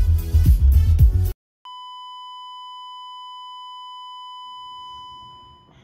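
Bass-heavy music with a steady beat cuts off abruptly a little over a second in. After a brief gap, a steady, single-pitch electronic beep holds for about four seconds, then gives way to faint room sound near the end.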